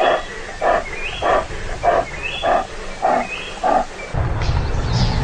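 A lioness calling in a fast, even series of short roars, about one every 0.6 s, which stops about four seconds in. A low steady noise then begins.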